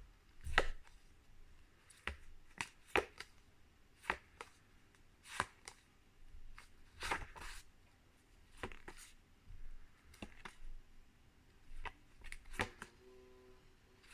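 Paper phonics flashcards being flicked through by hand one after another: a run of short swishes and taps, roughly one or two a second at an uneven pace.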